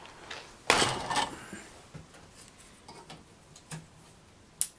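Handling noises on a workbench: a loud clunk about a second in as a cordless drill is moved aside, then light clicks and one sharp click near the end while the clamp knob of a small vise is tightened on a copper wire.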